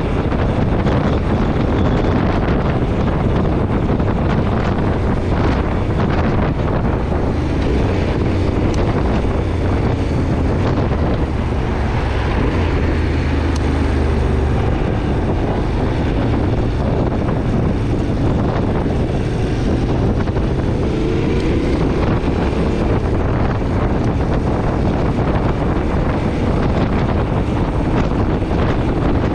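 Yamaha Ténéré 700's parallel-twin engine running steadily while riding, mixed with wind noise buffeting the microphone. The engine note shifts briefly about two-thirds of the way through.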